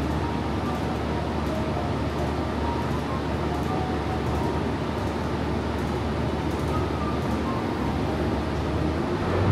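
A bus cabin on the move: a steady low engine hum and road noise. Near the end there is a small bump, and the engine note starts to rise as the bus gathers speed.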